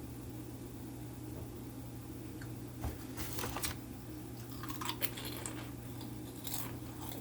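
Close-up eating sounds: someone biting and chewing food, with a few short, irregular crunches from about three seconds in, over a steady low hum.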